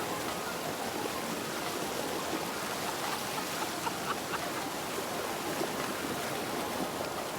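Water of a tall waterfall rushing steadily, a constant even noise without a break.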